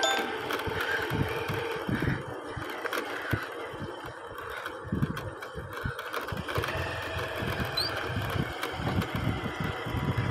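A vehicle engine running steadily while on the move, with wind and jolts rumbling irregularly on the microphone.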